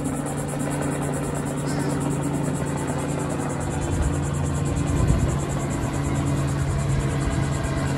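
Light two-bladed helicopter flying overhead: a steady drone of engine and rotor with a rapid, even chop.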